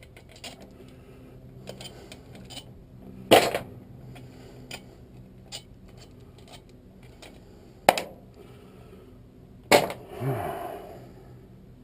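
Metal transmission internals clinking and clanking as they are pulled from the case and handled, with scattered light clicks and three sharp louder clanks: about three seconds in, about eight seconds in, and near ten seconds in.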